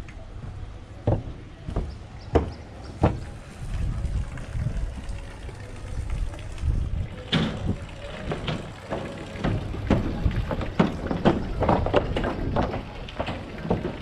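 Footsteps at a walking pace over a steady low rumble: a few spaced steps at first, then steady steps about two a second from halfway through.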